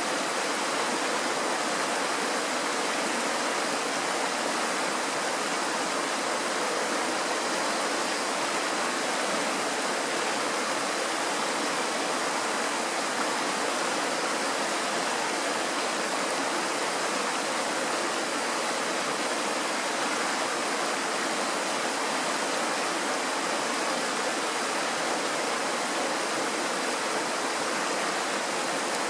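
Mountain stream rushing over rocks through a small white-water rapid: a steady, unbroken rush of water.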